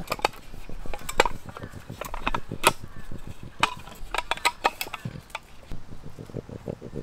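Irregular sharp clicks and clacks of small metal camp cooking gear, a compact gas burner and a hot sandwich maker, being handled, folded and set down on a camp table. Near the end comes a fast, low, rhythmic pulsing.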